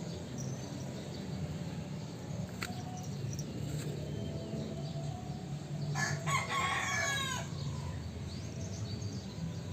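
A single long bird call about six seconds in, lasting about a second and a half, over a steady low hum.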